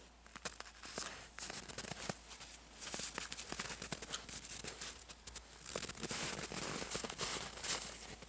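Frozen snow crunching and crackling under a wild boar's hooves and snout as it walks and roots along a fence, a dense run of small crunches that gets busier a few seconds in.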